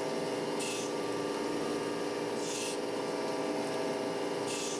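Surface grinder running under coolant, its wheel grinding a small metal part: a short hissing scrape about every two seconds, three times, as the table carries the work back and forth under the wheel. A steady motor hum runs beneath.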